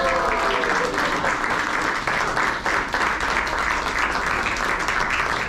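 A small audience clapping and applauding steadily.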